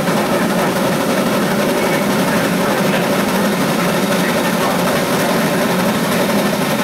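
Lima Shay geared steam locomotive No. 6 working under load close by: a loud, steady mix of exhaust and running-gear clatter that does not let up.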